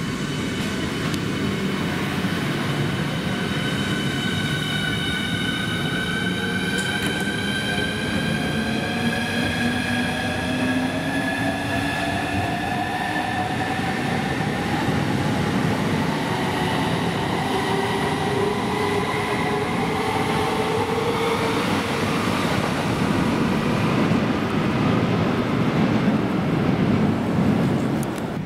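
Southeastern Class 395 Javelin electric train pulling away and gathering speed, its traction motors whining in several tones that rise steadily in pitch, over the rumble of wheels on the track.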